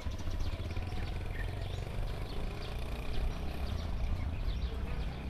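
Outdoor ambience of wind rumbling on the microphone, with small birds chirping now and then throughout.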